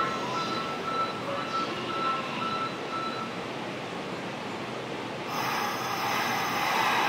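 Station platform ambience beside a stopped Hanshin train: a repeating electronic beep, about two a second, stops about three seconds in, and a loud, steady hiss starts about five seconds in and runs on.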